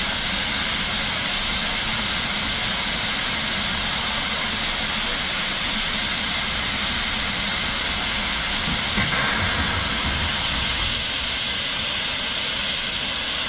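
Stanier Black 5 4-6-0 steam locomotive standing with steam hissing steadily and loudly, with a brief knock just before nine seconds in.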